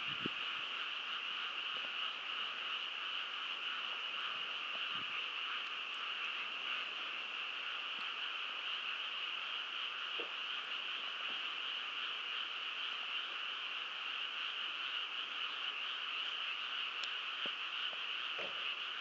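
A dense chorus of many frogs calling at once, a steady unbroken wall of croaking with no pauses.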